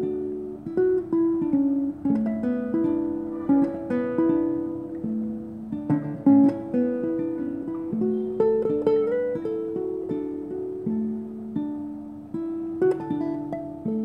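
Nylon-string classical guitar played fingerstyle: a slow melody of single plucked notes, each ringing and fading, over lower bass notes.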